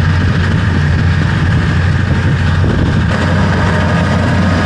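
Tractor engine running steadily, a loud, even low hum.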